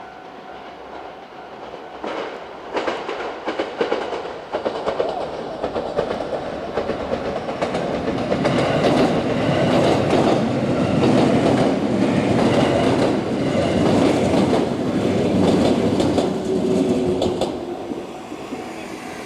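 Six-car 221 series electric train approaching and passing over a level crossing. The wheels clatter over the rail joints from about two seconds in, build to a loud rush through the middle and fade near the end. A steady level-crossing bell tone rings underneath.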